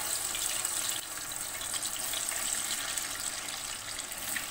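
Cut potato fries sizzling steadily as they deep-fry in hot oil.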